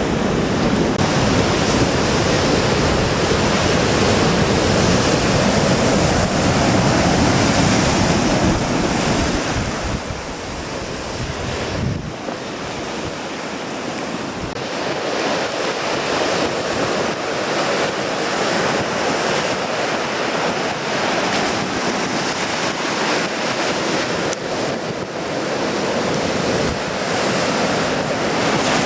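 Sea waves surging and breaking on a rocky shore in strong wind, with wind buffeting the microphone as a heavy low rumble that eases after about ten seconds.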